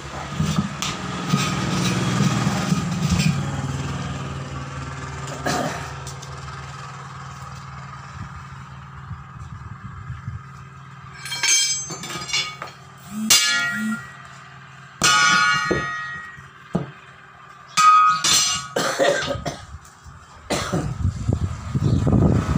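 Steel tyre-fitting parts clanking and ringing as a worker sorts through a pile of metal rings and rods on a concrete floor: a run of sharp metallic clanks, several ringing on for about a second, in the second half. Under them runs a low steady hum that is strongest in the first few seconds.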